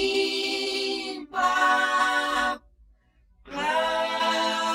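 Unaccompanied voice singing slowly in Portuguese, holding long notes ("limpa") with short pauses between them.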